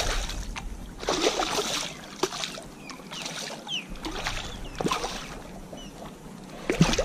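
Water splashing and sloshing against a kayak in several irregular bursts as a hooked black drum is fought beside the boat, with a few sharp knocks.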